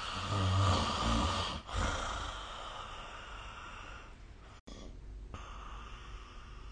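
A person snoring: one loud, low snore in the first two seconds, followed by a breathy exhale that fades into steady, quieter breathing. The sound cuts out for an instant about four and a half seconds in.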